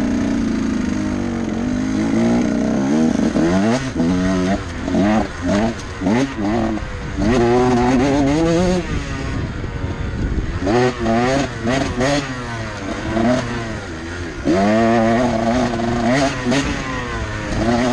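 Dirt bike engine revving up and dropping back again and again as the throttle is worked, its pitch rising and falling every second or two, with short knocks and rattles scattered through.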